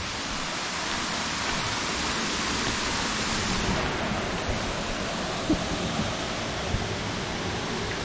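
Steady rushing of a small waterfall spilling over rocks into a pool.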